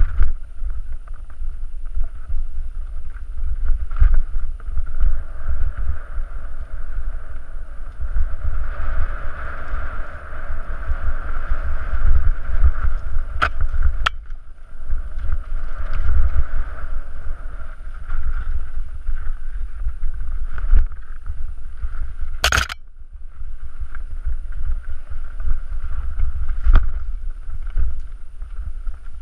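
Mountain bike descending rocky singletrack, heard from a camera on the bike: wind buffeting the microphone and the rattle of tyres and frame over loose stones, with a steady high buzz underneath. Sharp knocks from rock strikes come now and then, and a short, sharp clatter about two thirds of the way through is the loudest sound.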